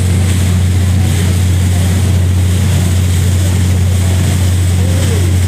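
Passenger ferry's engines running with a steady low drone, under a constant rushing hiss.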